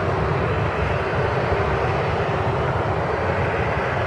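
Airbus A320neo on final approach with gear down, its CFM LEAP-1A turbofan engines heard as a steady, even jet noise.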